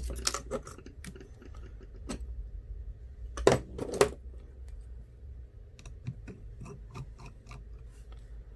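Light clicks and taps of small repair tools and phone parts being handled on a work surface, with two sharper knocks about three and a half and four seconds in and a quick run of clicks near the end.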